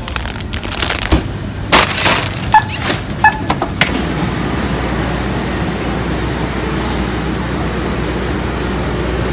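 Plastic snack bag crinkling as it is handled, with two short beeps about three-quarters of a second apart, then a steady background hum of a busy café counter.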